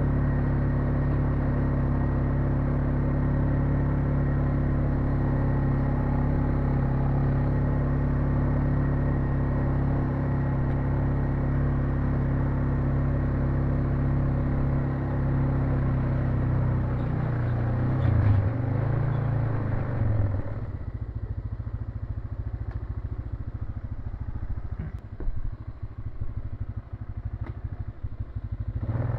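ATV engine running steadily, its pitch wavering briefly about 18 seconds in. About 20 seconds in it drops to a quieter, pulsing idle, and it picks up again at the very end.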